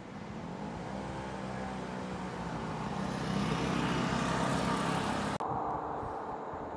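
A motor vehicle's engine running, growing steadily louder as it comes closer, then cut off abruptly about five seconds in. A quieter, weaker engine hum follows.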